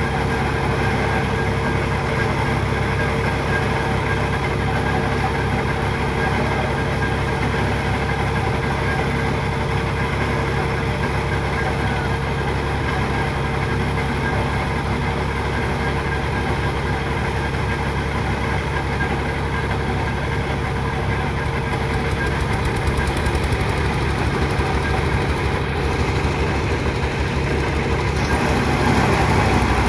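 An engine running steadily at an even speed with a constant hum, getting slightly louder near the end.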